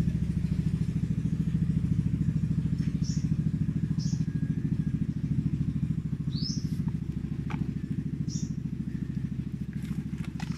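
A small engine running steadily with a fast, even pulse. A few short, high chirps sound over it.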